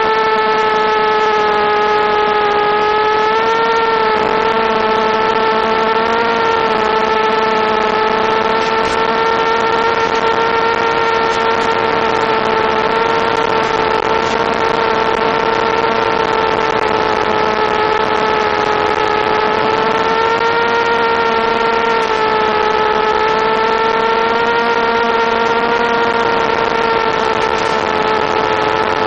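Mini quadcopter's Suppo brushless motors and propellers whining in flight, a steady high hum whose pitch shifts a little with throttle, over a steady hiss.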